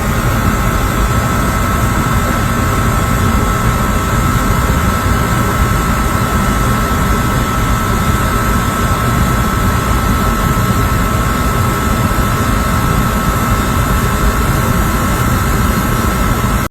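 HVAC equipment running loudly and steadily: a strong low rumble and airy rush with a steady high whine over it. It cuts off suddenly at the end.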